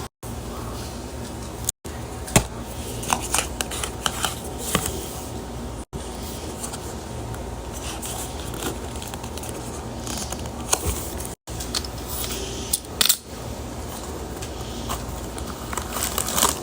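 Scattered light clicks and clatter of small objects being handled, over a steady low hum, broken by a few brief moments of complete silence.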